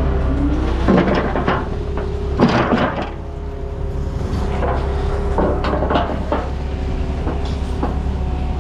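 Concrete mixer truck's engine running steadily with a low hum, with several clanks and scrapes of metal tools and the chute, the loudest about a second and two and a half seconds in.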